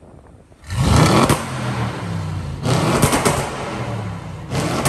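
Audi RS6 Performance twin-turbo V8 exhaust: after a quiet start, the engine is suddenly revved hard about two thirds of a second in, and surges twice more, each surge ending in a burst of crackles and pops.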